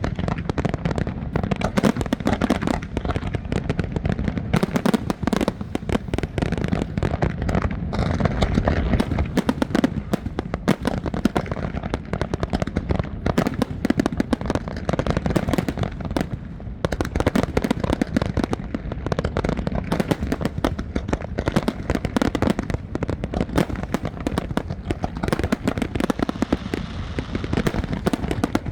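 Fireworks display: dense, continuous bangs and crackling with no let-up.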